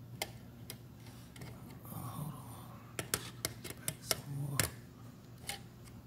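Screwdriver clicking and tapping against the metal terminal screws and plastic housing of a doorbell chime: a scatter of sharp clicks, most of them close together about three to five seconds in.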